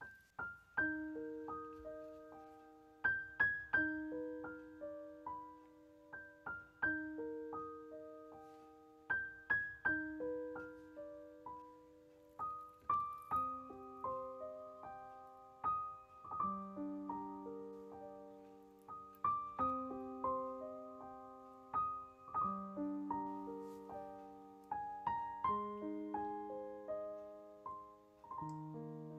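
Background piano music: a slow, gentle melody of single struck notes over lower sustained notes.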